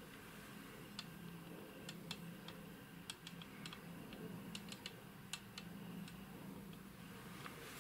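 Faint, irregular small metallic clicks and ticks as the large spur gear inside a Sperry aircraft gyro unit is turned by hand, over a low steady hum.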